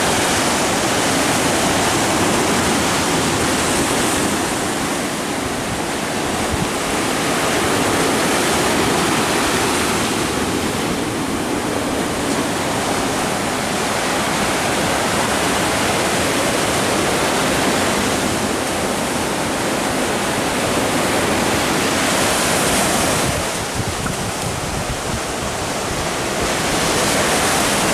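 Sea surf breaking and washing up the sand and rocks at the shoreline: a steady rush of noise that swells and eases every few seconds as each wave comes in.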